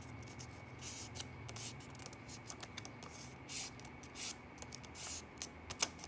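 Crisp rustling of a US one-dollar bill being folded in half and creased between the fingers, in short separate rustles, with a sharper crackle of the paper just before the end.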